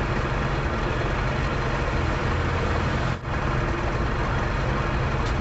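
Car engine with carburettor and distributor ignition running steadily, with a brief drop in sound about three seconds in.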